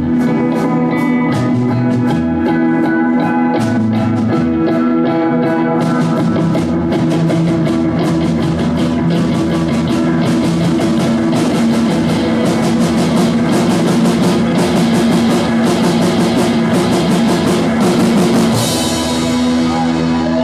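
Live rock band playing: electric guitar chords and riffs over a drum kit, the drumming growing busier from about six seconds in, then a cymbal crash and a held chord near the end.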